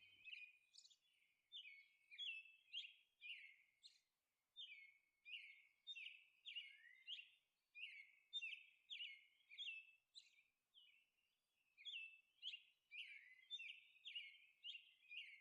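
Faint birds chirping: a steady run of short, high chirps, a few a second, with one brief pause about two-thirds of the way in.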